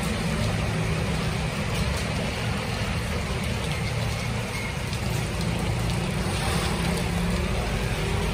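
Heavy rain pouring steadily onto a flooded street, with the low rumble of passing motor traffic underneath.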